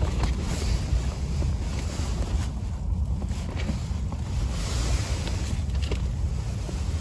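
Strong wind buffeting the microphone: a steady, gusty low rumble.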